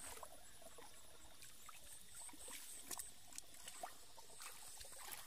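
Faint wet squelches and small splashes of hands groping through soft, watery mud, with a thin high insect chirp repeating in the background.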